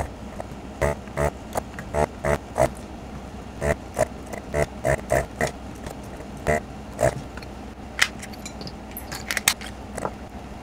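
Vacuum pump of a desoldering gun giving short buzzing bursts, about one or two a second, each time the trigger is pulled to suck the molten solder out of a through-hole pin as the nozzle works down a row of pins. A few sharper high clicks come near the end.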